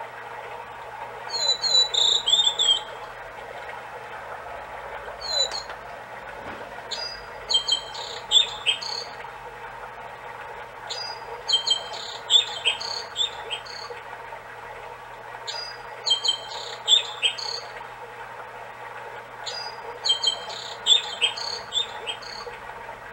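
Recorded songbird song played through the small speaker of a Seiko FS510B wall clock as its hourly wild-bird chime, over a steady recorded stream murmur. The song comes in short high chirping phrases about every four seconds.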